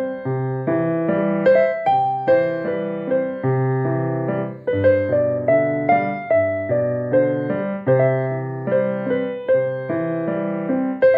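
Background piano music: a melody of struck notes, about two a second, each fading away, over held low bass notes.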